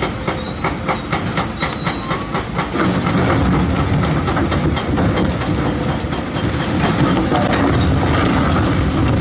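Heavy crawler excavator running with a rapid regular metallic clanking, about four clicks a second. About three seconds in, the diesel engine grows louder and deeper, as under hydraulic load.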